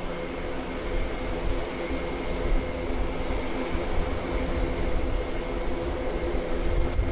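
Airbus A400M's four TP400-D6 turboprop engines and eight-bladed propellers running on the ground at taxi, a steady drone with several humming tones over a low rumble.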